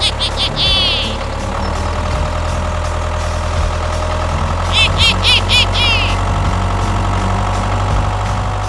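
Engine of a DIY mini tractor-bulldozer running steadily with a deep hum. Two short bursts of rapid high chirping come near the start and about five seconds in.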